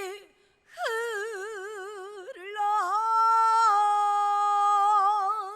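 A woman singing gugak (Korean traditional folk singing) unaccompanied, drawing out one syllable over long held notes. After a short breath she swoops up into a note with a wide, slow vibrato, dips about two seconds later, then holds a steadier note to the end.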